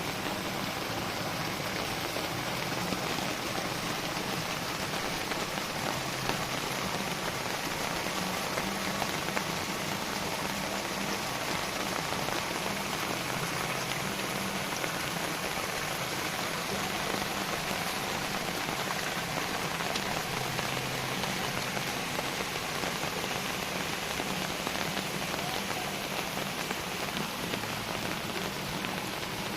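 Heavy rain falling steadily: a dense, even hiss of drops on surfaces, with a few sharper individual drop impacts.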